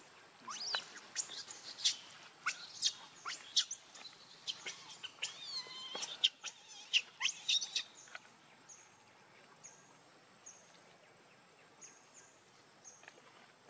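Infant pig-tailed macaque screaming in a rapid string of shrill, sweeping squeals that stop about 8 seconds in. After that, only a faint steady high tone with short chirps repeating a little more than once a second remains.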